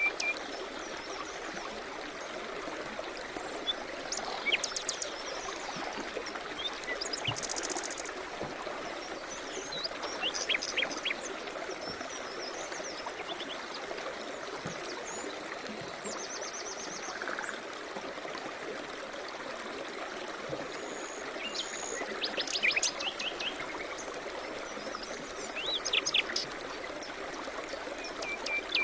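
Steady rush of a river or stream, with small birds singing over it: short chirping phrases, quick trills and whistles every few seconds.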